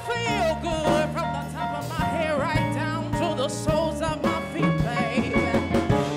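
Live R&B/soul band playing: drum kit strokes and electric bass under a woman singing wavering, bending vocal runs.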